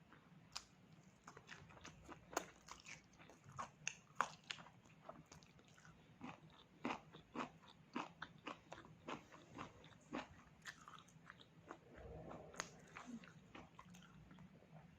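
Close-miked chewing of pork, with a quick series of sharp, crisp crunching clicks, about two or three a second, and a softer, duller patch near the end.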